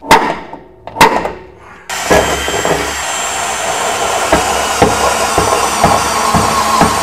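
Two sharp knocks about a second apart, then music with a steady beat cuts in suddenly about two seconds in and continues.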